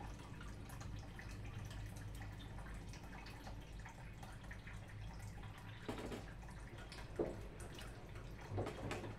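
Pieces of raw pig knuckle dropped into a black pot of water, making a few short splashes and knocks in the second half, over a steady low hum.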